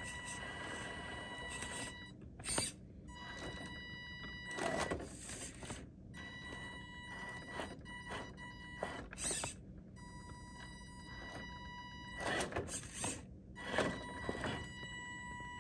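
Electric drive of a Carisma SCA-1E RC rock crawler whining in stops and starts as it crawls over rocks, the whine cutting out several times. Short bursts of scraping and clatter come as the tyres grip and slip on the stone.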